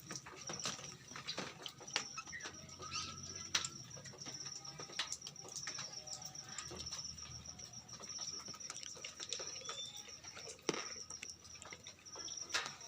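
Orange-headed thrushes moving about a colony aviary: wing flutters and sharp knocks of landings on perches and cage wire, with short chirps. A steady high pulsing trill runs underneath.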